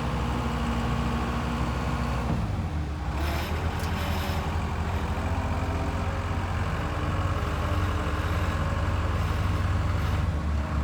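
The 2004 Case 95XT skid steer's 4T-390 turbocharged four-cylinder diesel engine running steadily. About two seconds in, the engine note changes. A brief hiss follows about a second later.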